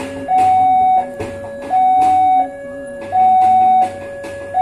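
Railway level-crossing warning alarm sounding an electronic two-tone chime, a higher and a lower note alternating about every two-thirds of a second while the crossing is closed for a train. Scattered sharp knocks are heard over it.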